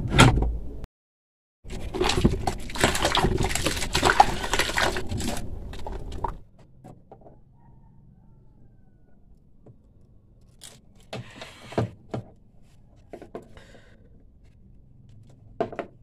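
A loud stretch of dense noise lasting about four seconds, then quiet scattered clicks, scrapes and rattles as the metal spring, pull strap and rubber plug of a twin-tub washing machine's drain valve are handled and pulled out.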